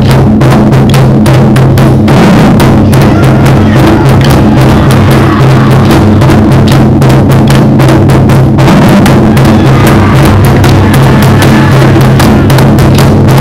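Japanese taiko drums beaten hard and fast by several drummers with wooden sticks: a dense, unbroken run of very loud strikes over a steady low ring from the drumheads.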